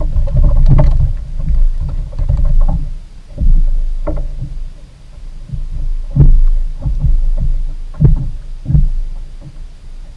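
Water slapping against a kayak hull, with a string of irregular dull knocks and thumps on the hull as a fish is handled and landed beside the boat.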